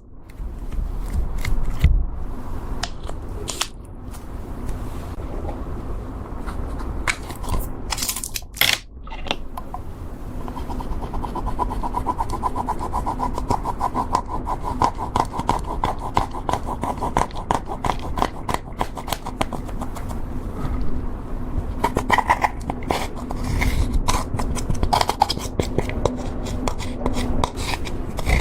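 Slime being squished, stretched and worked by hand as makeup is mixed in, giving a dense run of small wet clicks, pops and crackles.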